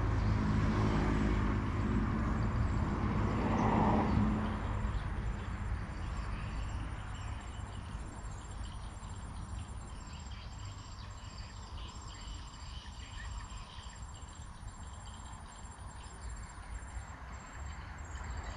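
A high-pitched insect trill pulses steadily throughout. Under it, a vehicle's low rumble fades away over the first four to five seconds.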